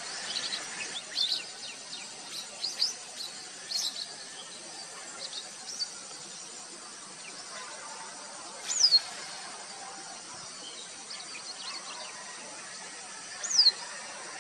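Wild birds calling: a scatter of short high chirps in the first few seconds, then two louder, sharply falling whistles, one near the middle and one near the end. A faint steady high insect hum runs underneath.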